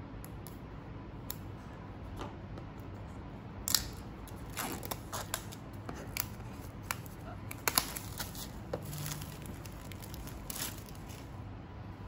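Plastic shrink-wrap being torn and peeled off a cardboard phone box: irregular crinkling with sharp crackles, starting about four seconds in and strongest around four and eight seconds.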